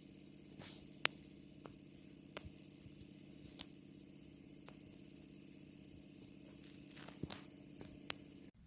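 Faint steady electrical hum with a thin high whine above it and a few soft clicks, cutting off suddenly near the end.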